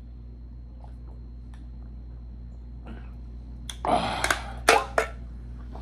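An aluminium soda can tossed into a paper-lined takeout tray: a crinkle of wrapper paper and a few sharp clicks and taps as it lands, starting a little past halfway and over within about a second.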